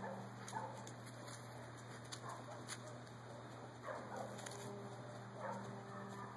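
Dogs whining and yipping in short calls, about four or five times, over a steady low hum.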